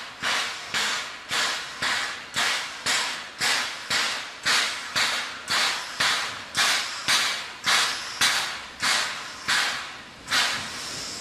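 Narrow-gauge Mallet steam locomotive's exhaust chuffing hard at about two beats a second, the beats slowing slightly. Near the end the chuffs stop and a steady hiss of steam takes over.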